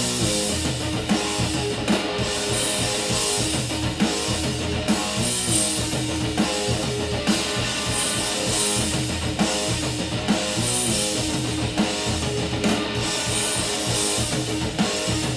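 Rock music: a guitar riff over a drum kit, with a steady beat accented about once a second.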